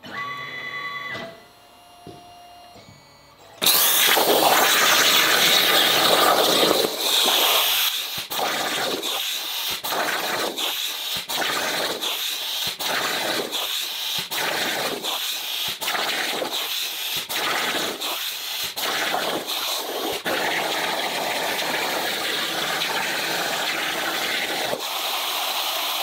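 Air plasma torch on a CNC plasma table cutting quarter-inch mild steel over a water table: a loud, steady hiss starting about three and a half seconds in, with short, regular dips. A few faint steady tones come before it.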